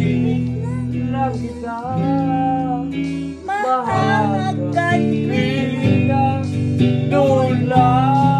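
Electric guitar playing long held chords while a man sings along over it, his voice gliding between long notes.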